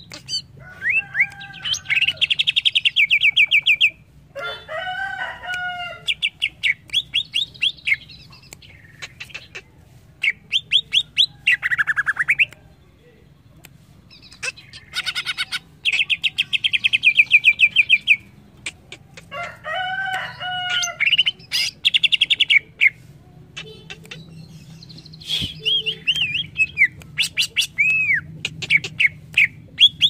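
Cucak ijo (leafbird) singing: bouts of fast, rattling trills and whistled up-and-down phrases, each a second or few long with short pauses between, mixed with a few lower, harsher chattering notes.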